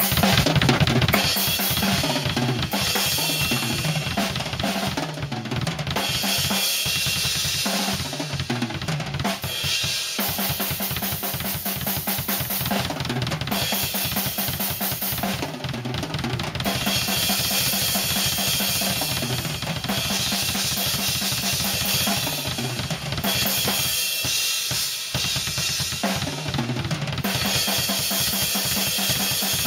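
Acoustic drum kit played solo with sticks: quick kick-drum strokes under snare hits and cymbals in a rock beat, with a few brief pauses in the playing.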